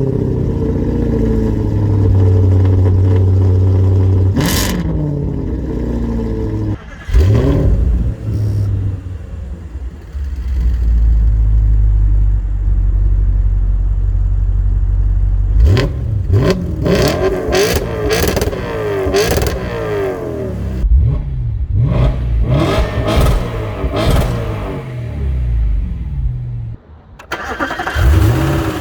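Audi RS5's naturally aspirated V8 revving again and again through downshifts and accelerations, heard from inside the car, with a stretch of steady low rumble midway. Sharp exhaust pops and crackles come in a burst a little past halfway.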